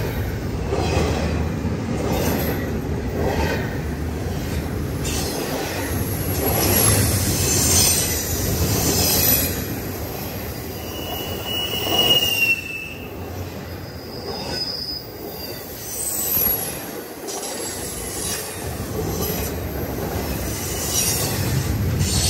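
CSX double-stack intermodal freight train cars rolling past close by: steady wheel-on-rail noise with clacking of the wheels. A brief high wheel squeal comes about eleven seconds in, sliding slightly down, and a fainter, higher one follows a few seconds later.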